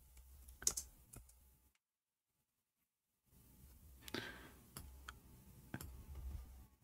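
Near silence broken by a few faint, scattered clicks, with about a second and a half of dead silence in the middle.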